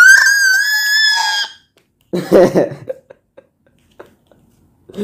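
A high-pitched vocal shriek, held with a slight wobble for about a second and a half, followed about two seconds in by a shorter, lower cry and a few faint clicks.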